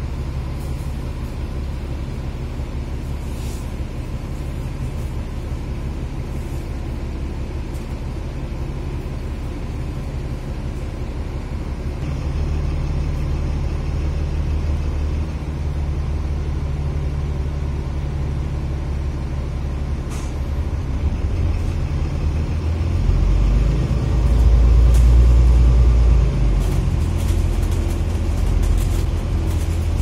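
Dennis Enviro500 MMC double-decker bus running, its engine and drivetrain a steady low drone. It grows louder about twelve seconds in and again a little past the middle, loudest a few seconds after that, with a few faint ticks.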